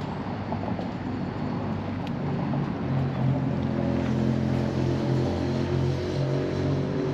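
An engine running steadily with a low hum, slowly growing louder.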